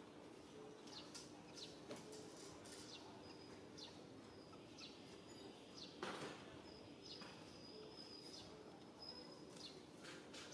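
Faint wild bird chirps: quick downward-sliding high chirps repeated every second or so, with a thin steady high note held for a few seconds in the middle, over a faint low hum. A brief louder noise about six seconds in.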